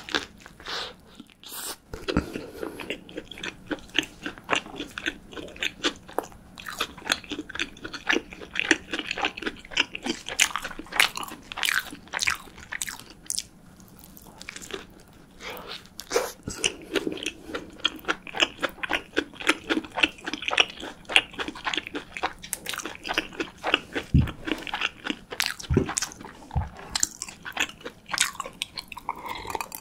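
Close-miked bites and crunchy chewing of a Mom's Touch Real Beef Burger, with big bites about two seconds in and again around sixteen seconds, and a dense run of crackly chewing clicks. A few low thuds come near the end.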